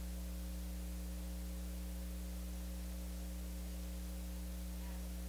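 Steady electrical mains hum with a low hiss from the sound system, unchanging throughout, with no other sound.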